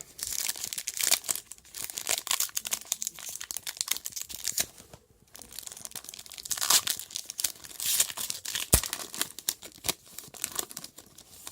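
Wrapper of a baseball card pack being torn open and crinkled, a dense crackle of tearing and rustling with a short pause about five seconds in.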